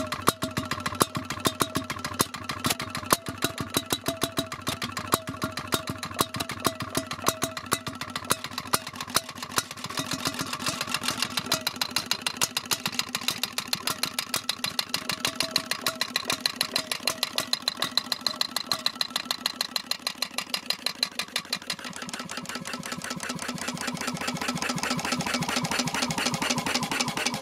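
Sunshine 7 hp portable single-cylinder engine running steadily: a fast, even mechanical ticking with louder sharp beats standing out about once or twice a second.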